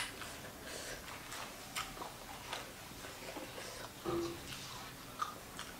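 Scattered soft clicks and crinkles of fresh leafy greens being handled and torn by hand, with a brief low hum about four seconds in.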